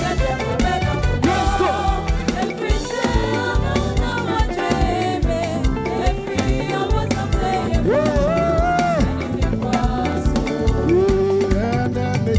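Upbeat live gospel praise music: a band playing a steady dance beat with singing voices over it.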